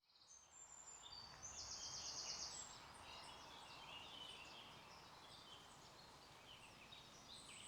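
Faint outdoor ambience of several songbirds chirping and trilling, with one longer buzzy trill about two seconds in, over a steady low background hiss. It fades in during the first second.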